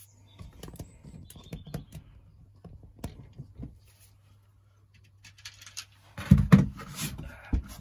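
Scattered light clicks and taps of things being handled, then louder thumps and rustling about six seconds in and a sharp knock near the end, over a steady low hum.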